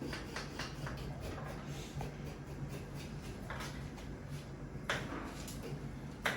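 Scattered light clicks and knocks of spoons and dishes being handled, a few in quick succession at the start and a sharper knock near the end, over a steady low hum.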